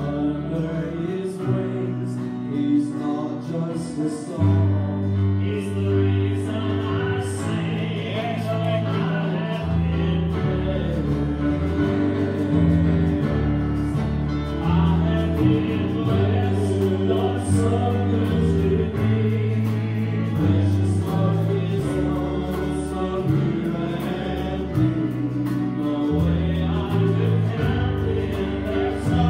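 Live church band playing a gospel song with voices singing: bass notes changing every second or two under keyboard and guitars, and drums with regular cymbal strokes.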